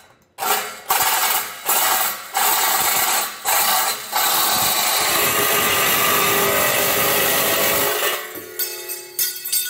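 Cordless reciprocating saw (Sawzall) cutting through a thin metal shield, in a few short starts and stops and then one long continuous cut. Near the end the cutting stops and only the motor's whine is left for a moment.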